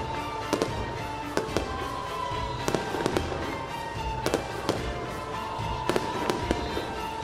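Fireworks and firecrackers going off at irregular intervals: sharp cracks and bangs, sometimes two or three in quick succession. Underneath them runs a steady tone that sinks slightly in pitch and starts again every couple of seconds.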